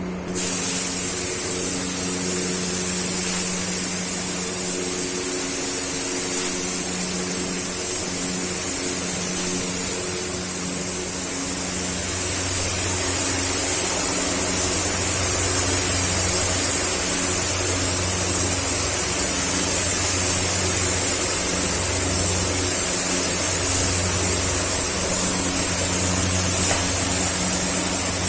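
Air spray gun held open and spraying clear coat: a steady, loud hiss of atomising air and paint that starts just after the beginning and runs unbroken until the end. A steady low hum sounds underneath it.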